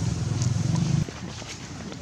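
A road vehicle's engine running steadily with a low hum, cutting off abruptly about a second in. After that comes quieter outdoor background with a few faint clicks.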